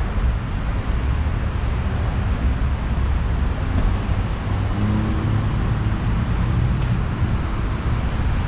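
Steady low rumble of vehicle engines and street traffic, with a faint steady hum in the middle.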